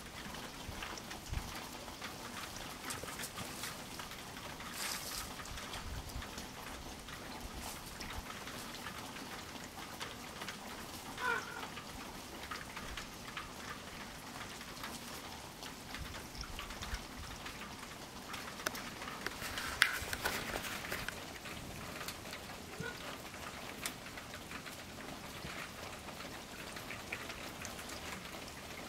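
Steady light patter of falling water drops, many fine ticks in a continuous hiss, with one louder tap about twenty seconds in.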